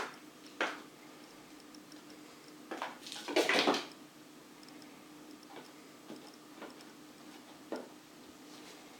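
Scattered soft knocks and rustles over a steady low hum, with one louder rustling scuffle about three and a half seconds in.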